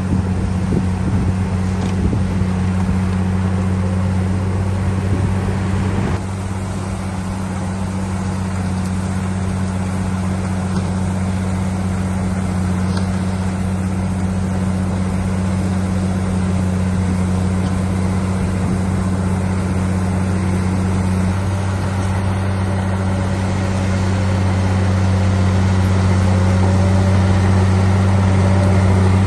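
Heavy diesel engine of earthmoving machinery running steadily with a deep drone, with some knocks over the first few seconds. The sound drops abruptly in level about six seconds in, then slowly grows louder toward the end.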